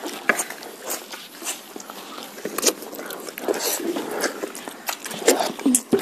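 Children eating food straight off plates with their mouths, no hands: irregular chewing, biting and mouth smacks, with short sharp clicks scattered through.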